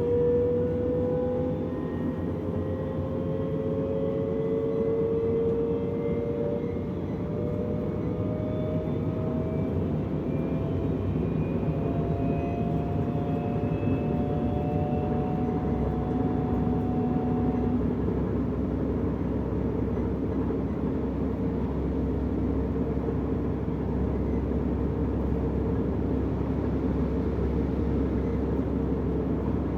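Inside a DB Class 425 electric multiple unit as it accelerates: the traction motor whine rises slowly in pitch for about the first fifteen seconds and then fades out, leaving the steady rumble of the train running on the track.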